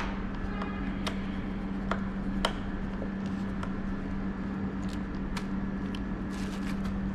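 Scattered light metallic clicks of a 4 mm Allen key loosening the handlebar bolts of an electric scooter, over a steady low hum.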